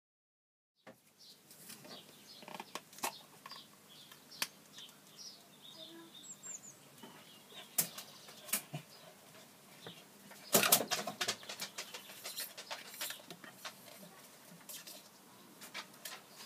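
Metal putty knife scraping wet paint off a stirring stick over a plastic paint tub: scattered short scrapes, clicks and taps, with a louder burst of scraping and knocking about ten and a half seconds in.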